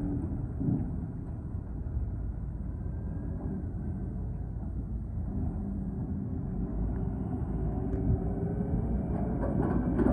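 Excavator engine running steadily with a low rumble, with a few short knocks near the end.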